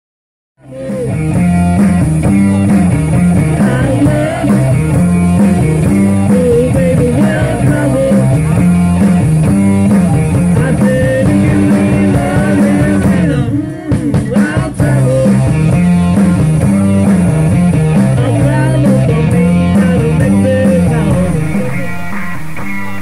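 Rock music with electric guitar and drum kit. It starts after a moment's silence and drops out briefly a little past halfway.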